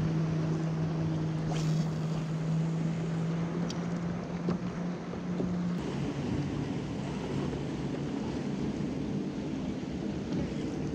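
Wind on the microphone and small waves lapping around a kayak on choppy water. Under them runs a steady low hum that cuts off a little past halfway.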